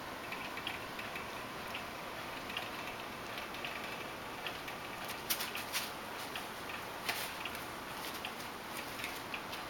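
Light, irregular clicks and taps from puppies moving about in a wire pen, over a steady background hiss, with a few sharper taps in the second half.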